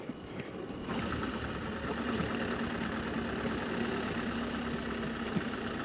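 Motorcycle engine running with a steady hum that comes in about a second in, heard during an attempt to bump-start a motorcycle that keeps flooding.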